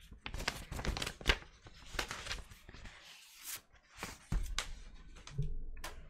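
Paper inner sleeve of a vinyl LP rustling and crinkling as the record is slid out and the sleeve handled, with a run of sharp crackles in the first two seconds, a brief lull, then more rustling and a single click near the end.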